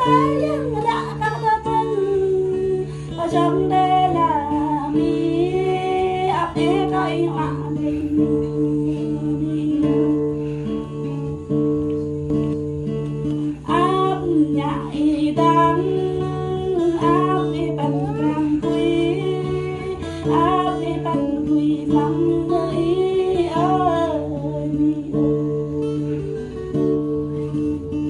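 A Jrai-language song: a singer's melody over strummed acoustic guitar and steady held low accompaniment notes, the voice coming in phrases with short instrumental gaps.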